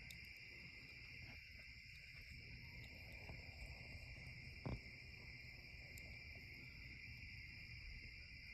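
Faint, steady chorus of crickets at night: a continuous high trill with no break. One soft knock about halfway through.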